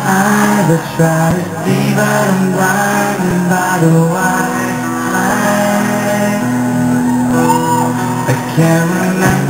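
Live rock band playing with acoustic and electric guitars and singing, with shouts from the crowd, in a large hall.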